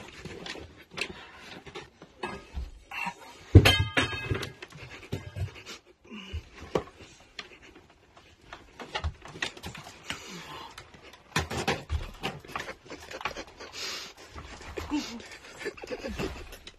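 Heavy breathing from a person hauling himself out through a window, with scuffs and knocks of body and clothing against the frame and sill. Loudest is a brief, high, pitched squeak about three and a half seconds in.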